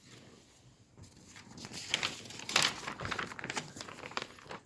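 Paper rustling and crinkling as the pages of a children's picture book are handled and turned, in a rapid run of crackly strokes starting about a second in.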